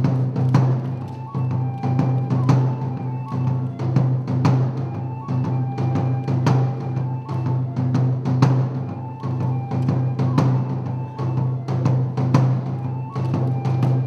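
Kagura accompaniment music: a drum beaten in a steady rhythm, with a high bamboo flute playing short held notes over it.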